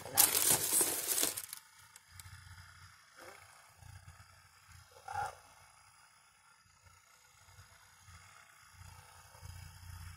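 Percussive massage gun on its lowest speed pressed against the shoulder and neck, a low pulsing buzz that swells and fades as it is moved over the body. A loud hiss-like noise fills the first second and a half.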